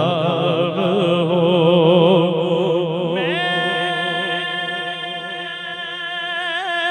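A male naat reciter singing one long, drawn-out melismatic passage of the devotional refrain through a microphone. The line wavers in quick vocal ornaments at first, then about three seconds in slides up to a high note that he holds steady.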